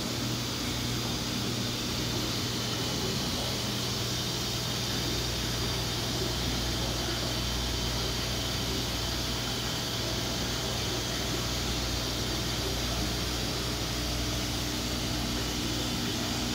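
Aquarium air pump running steadily, with the bubbling of the sponge filters it feeds: a constant low hum under an even hiss.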